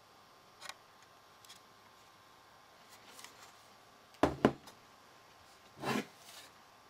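Handling noise from an ASUS ROG Matrix HD7970 graphics card being turned over in the hands: a few faint clicks, then two sharp knocks in quick succession about four seconds in, and a short scraping rustle near the end.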